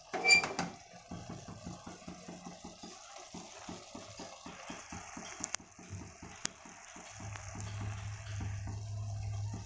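Watery semiya (vermicelli) upma simmering in a pot, bubbling in soft pops about five times a second, with a plastic spatula in it. A short clink at the start and two sharp ticks midway, and a low hum comes in near the end.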